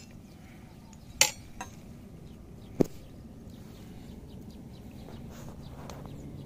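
Two loud, sharp clicks about a second and a half apart, the first followed closely by a softer one, over a faint steady background hum.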